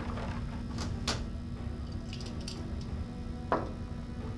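A few light clicks and taps from a ceramic jar and metal instruments being handled on a tabletop, with a soft knock about three and a half seconds in, over a faint steady hum.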